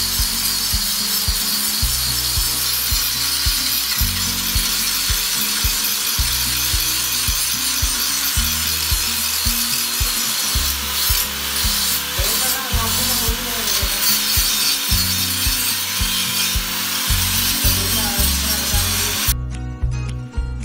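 Handheld angle grinder cutting metal with a steady, high-pitched grinding hiss, over background music with a steady bass beat. Near the end the grinding cuts off and only the music remains.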